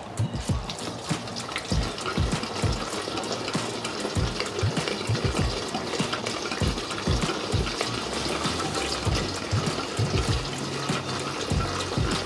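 Gasoline pouring from a plastic gas can's spout into an empty plastic motorcycle fuel tank, a steady liquid fill that carries on throughout.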